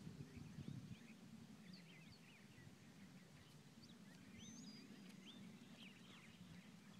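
Near silence with faint, scattered chirps of small birds over a low steady rumble.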